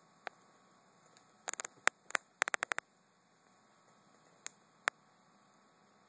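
Short runs of sharp clicks and rattles over a faint steady hiss: a quick cluster about a second and a half in, the loudest, and a couple of lone clicks near the end.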